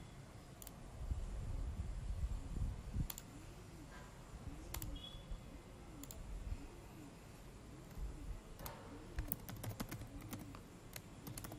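Computer keyboard keystrokes: single key clicks spaced out at first, then two quick runs of keys near the end.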